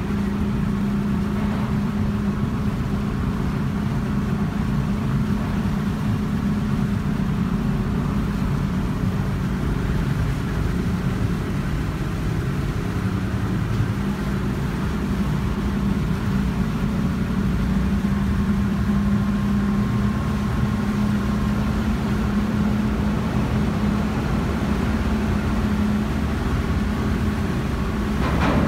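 A boat's engine running steadily while the boat cruises, a constant drone with a low rumble beneath it. A short burst of noise comes near the end.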